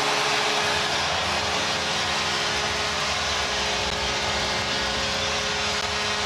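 Arena crowd cheering after a home goal, over a long steady goal horn.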